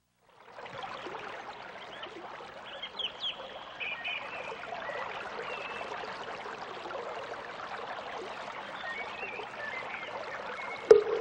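Running water trickling steadily, with a few faint short bird chirps. Near the end a sharp strike rings on with a steady mid-pitched tone.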